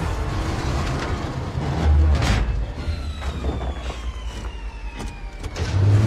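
Deep engine rumble of a giant mining haul truck on the move, swelling about two seconds in, with scattered knocks and a high tone gliding slowly down in pitch in the middle.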